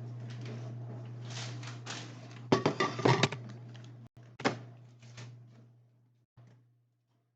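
Items and containers being moved about and set down in a refrigerator: a run of knocks and clatter about two and a half seconds in, a sharper knock a second later, over a steady low hum, with the sounds dying away near the end.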